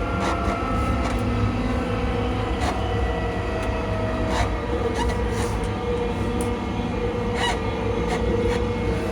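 ScotRail Class 334 electric multiple unit running, its traction motors giving a steady whine of several tones that shift slightly in pitch over a low rumble, with scattered short clicks from the wheels on the track.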